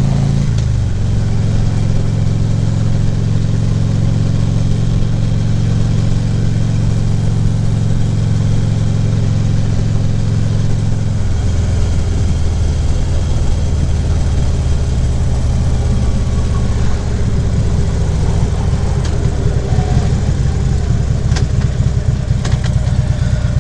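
Harley-Davidson Ultra Classic Limited V-twin engine running as the motorcycle rides along, with wind and road noise. About halfway through, the engine note drops lower.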